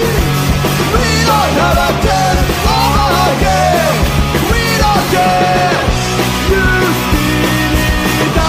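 Loud rock music from a full band: a steady low accompaniment with a melody line bending up and down in pitch over it.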